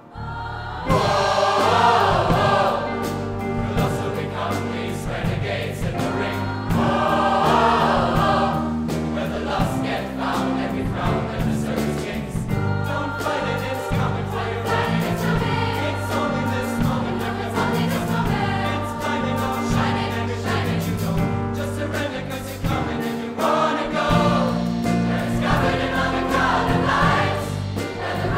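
Large mixed choir singing a pop show tune with a live band of drums, electric guitar and piano. After a momentary break at the very start, the full choir and band come back in and keep going.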